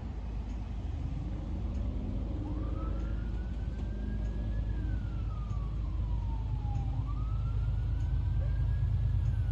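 An emergency vehicle's wail siren, rising quickly and falling slowly twice over a low rumble that slowly grows louder.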